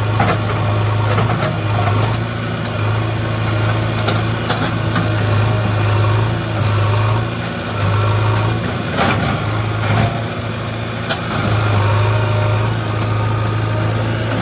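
JCB 3DX backhoe loader's diesel engine running with a steady low hum that eases off and picks up again several times as the machine works. A few sharp knocks stand out.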